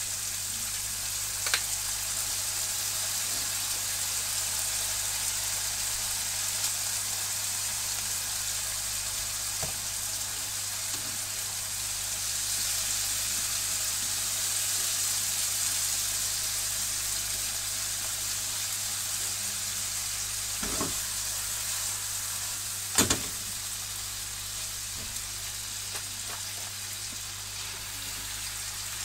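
Chicken skin and green peppers sizzling steadily as they stir-fry in a frying pan. A few short knocks from stirring against the pan, the loudest about three quarters of the way in, over a low steady hum.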